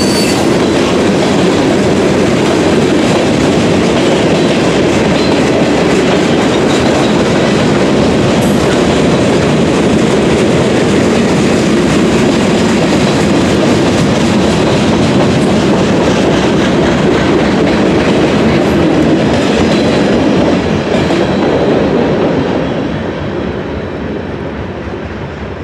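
Freight cars rolling past close by: a steady rumble of steel wheels on the rails with a clickety-clack over the rail joints. The sound fades over the last few seconds as the end of the train goes by.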